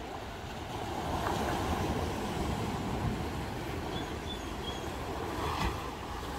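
Wind blowing across the microphone as an uneven low rumble, over small waves washing against lava rocks at the shoreline.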